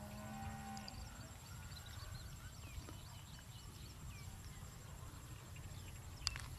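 Outdoor ambience: a low rumble, likely wind on the microphone, with many faint short high chirps throughout, a steady hum for the first second, and one sharp click near the end.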